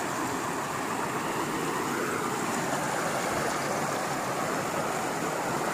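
Steady rushing of a river flowing over a small waterfall.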